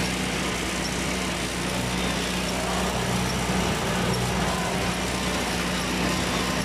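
Tractor engine running steadily at a constant speed, a low even drone.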